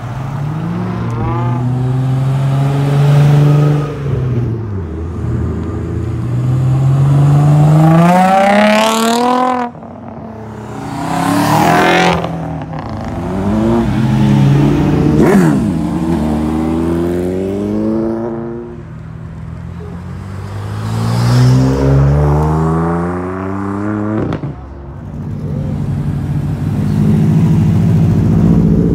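Cars accelerating hard one after another. Each engine's pitch climbs steeply and then drops sharply, as at a gear shift, and some cars pass close by.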